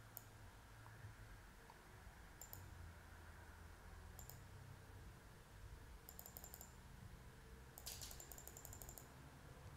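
Faint clicks of a computer mouse: single clicks about two and four seconds in, then two quick runs of clicks later on, over quiet room tone.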